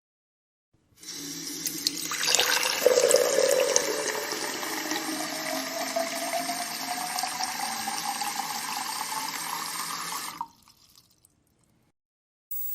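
Liquid being poured steadily into a container. It starts about a second in and gets louder a second later, with a tone that rises slowly in pitch as the container fills, and cuts off abruptly near the end.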